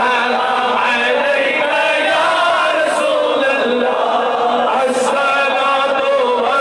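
A man's voice chanting in long, slowly bending held notes, amplified through a microphone: the preacher's melodic, sung delivery of the sermon.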